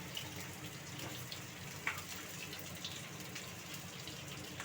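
Bitter gourd pieces sizzling steadily in hot oil in a kadhai, with a few short pops and crackles.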